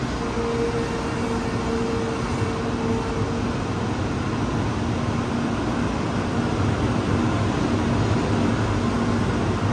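Shinkansen bullet train at the station platform: a steady rumble and hum with a faint steady tone during the first few seconds and a lower tone that comes and goes, growing slightly louder toward the end.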